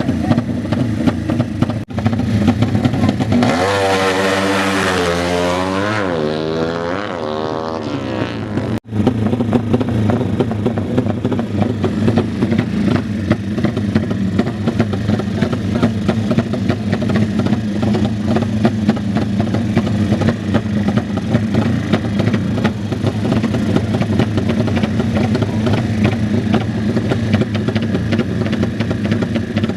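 Motorcycle engines running and revving, with one passing close and loud from about 3 to 8 seconds in, its pitch bending as it goes by.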